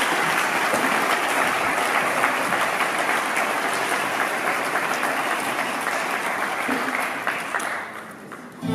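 Theatre audience applauding, a dense steady patter of clapping that dies away near the end.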